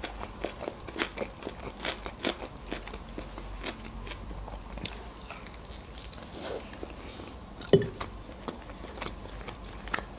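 Close-miked eating of pan-fried chicken wings: chewing and biting with many short clicks and small crunches, and one louder bite sound near eight seconds in.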